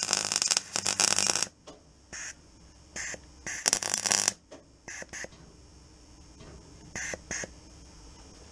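MIG welder arc crackling on sheet-steel floor panel in short stop-start bursts, tacking a vertical seam weld: one burst of about a second and a half, then several shorter ones, the last two close together near the end.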